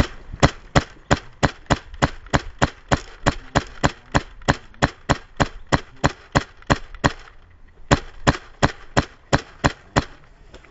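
Polarstar HPA-powered Krytac airsoft rifle firing a steady string of single shots, about three a second, each a sharp crack, with a short pause about seven seconds in before the shots resume.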